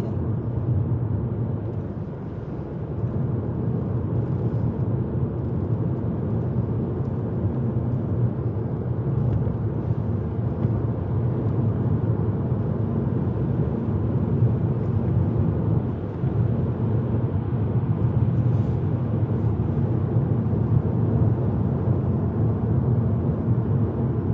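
Steady low rumble of a car's engine and tyres heard from inside the moving car's cabin.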